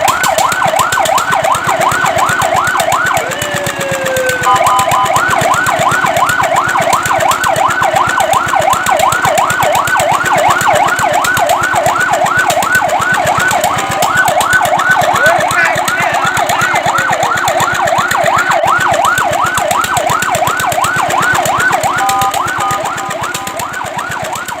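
Fire truck siren in a fast yelp, its pitch sweeping up and down about four times a second, broken a few times by short bursts of a steady two-note tone.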